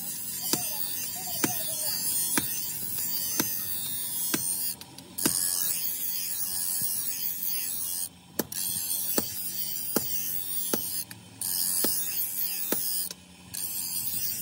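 Electric bench grinder running with a low hum while a leaf-spring steel billhook blade is ground against its stone wheel, a steady grinding hiss that stops briefly four times as the blade is lifted off. A sharp click or knock sounds about once a second.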